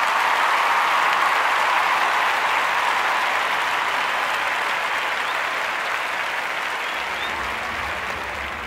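Crowd applauding, loud at first and slowly fading toward the end.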